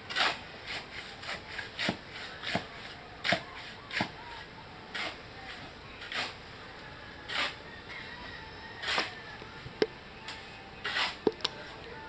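Shovel scraping and turning a pile of hand-mixed mortar on bare ground in repeated strokes, roughly one a second, with a couple of sharp clicks of the tool near the end.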